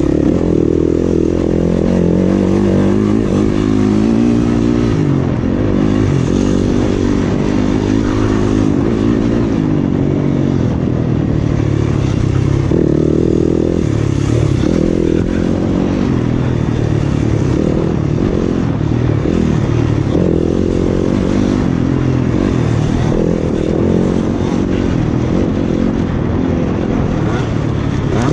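Yamaha 250 off-road dirt bike engine under race load, its revs rising and falling over and over as the throttle is worked through tight woods turns.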